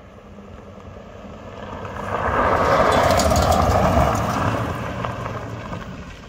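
A car driving fast past on a gravel road: engine revving and tyres crunching and throwing gravel, growing loud to a peak between about two and a half and four seconds in, then fading as it drives away.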